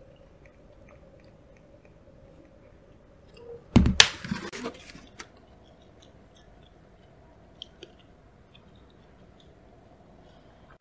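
A plastic boat-shaped sushi platter is set down onto a tray with a short clatter and knock about four seconds in. The rest is faint small clicks over a low steady hum.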